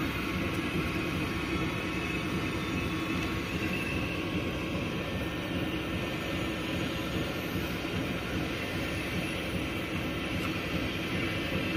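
Steady mechanical running noise of a label slitting and rewinding machine: an even hum and rumble with a faint high whine over it.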